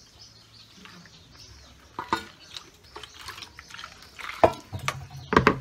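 Homemade liquid soap being poured and scraped out of a plastic basin into a basin of foamy soap: wet sloshing and dripping, broken by a few sharp plastic knocks, the loudest near the end.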